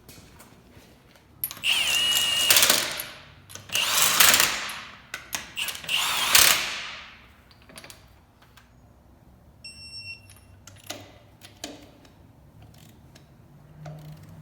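Impact wrench spinning lug nuts onto a wheel in three bursts of about a second each, running them down snug before they are torqued by hand.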